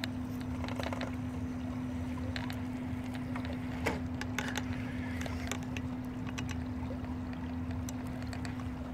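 RC crawler's electric motor and drivetrain humming at one steady pitch as the truck creeps over the rocky river bank, with scattered clicks and knocks from its tires and chassis on stone.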